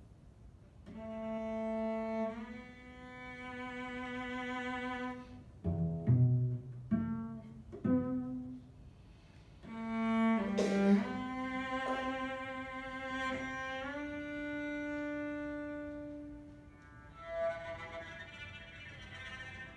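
Solo cello playing long bowed notes that slide from one pitch to the next, broken about six to eight seconds in by a run of short, sharp notes, then held notes again that grow quieter near the end.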